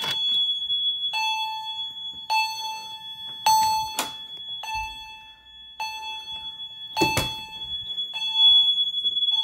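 Fire alarm notification appliances set off by pulling a Firelite BG-12 pull station: a steady high-pitched alarm tone sounds together with an Edwards chime striking about once a second, each strike ringing on.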